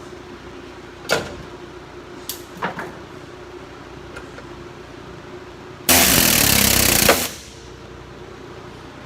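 Body-shop tool work on an aluminum truck bedside: a few sharp knocks, then a loud hissing rush about a second and a half long that starts and stops abruptly.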